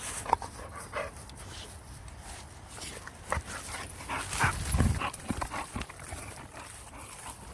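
Boxer dog making short vocal sounds and breathing hard as it playfully mouths at a hand, mixed with scattered rustles and bumps, loudest about four and a half to five seconds in.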